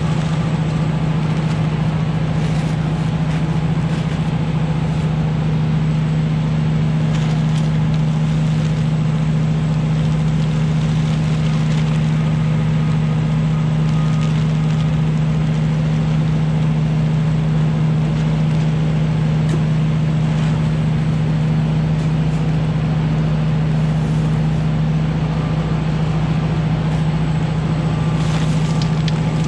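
Vapor blasting unit running at a steady level with a constant low drone.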